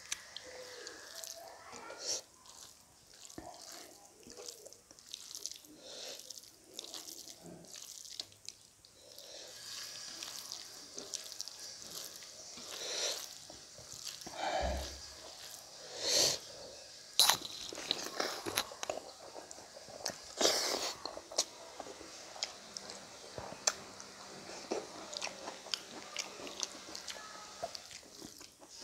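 Eating by hand: fingers kneading and squishing rice and curry against a metal plate, with chewing and crunching mouthfuls, heard as irregular close clicks and squelches, with a few louder ones around the middle.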